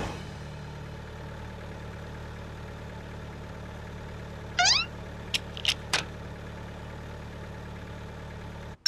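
Cartoon sound effect of a car and a motor scooter idling, a steady low hum. About halfway through comes a short rising squeak, followed by three sharp clicks about a third of a second apart.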